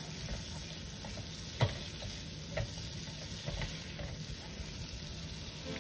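Minced garlic sizzling in melted butter in a frying pan while a silicone spatula stirs it, with a few light knocks of the spatula against the pan.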